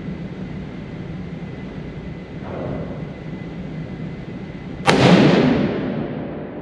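A single .30-06 rifle shot from a Savage 110 High Country about five seconds in: a sharp crack followed by a long echoing tail off the walls of an indoor range, over steady background noise.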